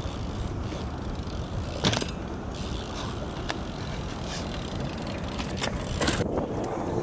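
BMX bike rolling over rough concrete, a steady tyre rumble mixed with wind on the microphone. A few sharp clacks break through, the loudest about two seconds in and another near the end.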